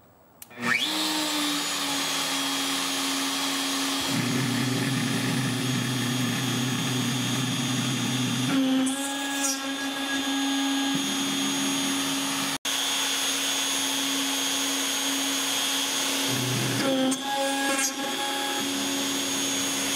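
Handheld CNC router (a DeWalt router in a Shaper Origin) spinning up about half a second in, then running steadily with a 1/8-inch carbide end mill helixing down through 1/16-inch aluminum plate to cut holes. In several stretches a lower, rougher tone joins the router's steady whine.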